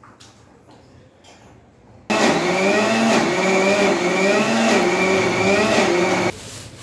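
Electric mixer grinder running with a steel jar, grinding a wet red masala. The motor starts about two seconds in, runs loud with a slightly wavering pitch for about four seconds, and cuts off suddenly near the end.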